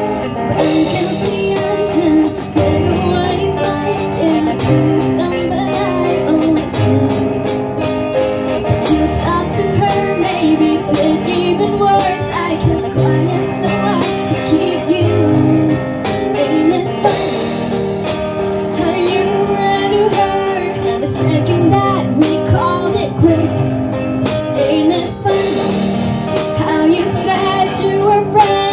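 Live band playing a song: a singer over guitar and a drum kit keeping a steady beat.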